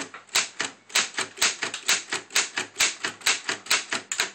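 1947 Remington Standard manual typewriter being typed on: a steady run of sharp key and typebar strikes, about five a second, showing that all the keys work.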